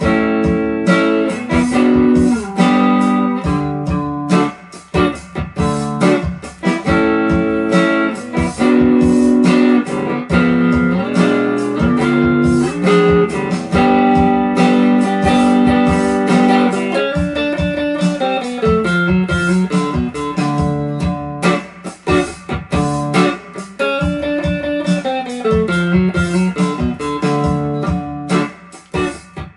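Stratocaster-style electric guitar played with a pick: strummed chords of a progression in D mixed with short single-note riff lines. It is a slide-guitar part worked out for ordinary standard tuning.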